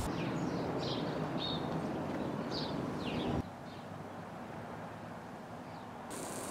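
Faint outdoor background with small birds chirping now and then: short, high, downward-sliding chirps, most of them in the first three and a half seconds.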